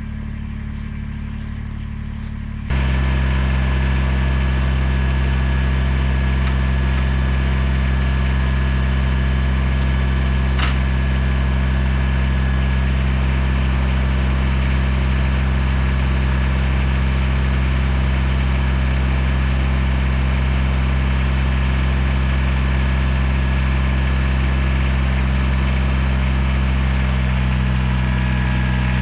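Kubota BX23S compact tractor's three-cylinder diesel engine running at a steady speed, stepping up sharply in loudness about three seconds in and then holding level.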